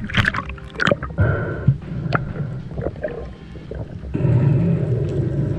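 Water splashing and sloshing against an action camera at the surface, with several sharp splashes in the first two seconds. About four seconds in it gives way to a steady, muffled underwater rumble.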